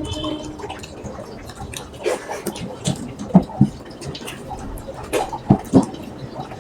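Wet eating sounds from a mouthful of rice and spicy mutton curry: chewing and smacking, a run of irregular soft clicks and squelches, several sharper ones past the middle.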